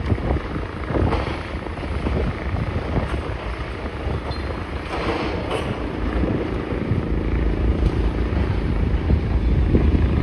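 Demolition machinery running with a heavy low diesel rumble, with irregular knocks and crackles from the work, and wind buffeting the microphone.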